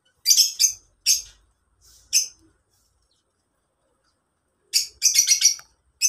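Lovebirds chirping: a few sharp, high chirps in the first couple of seconds, then a quick run of chirps near the end.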